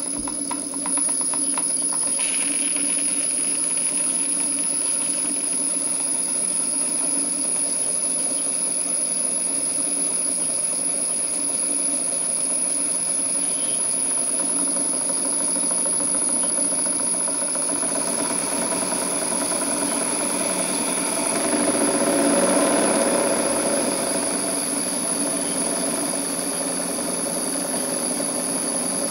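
Small Stuart model steam engines running steadily on live steam: a fast, even beat from the cylinders and exhaust, with a thin high whine alongside. The sound swells a little about three-quarters of the way through.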